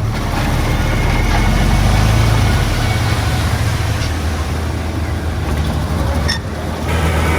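Diesel engine of heavy earthmoving equipment running steadily, a little louder over the first few seconds and dipping briefly near the end.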